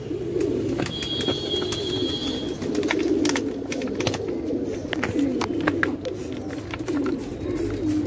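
Several pigeons cooing continuously, their low warbling calls overlapping, with repeated short squirts from a hand trigger spray bottle.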